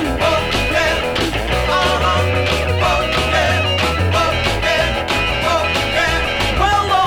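Rock music with guitar and a singing voice, a steady bass beat underneath.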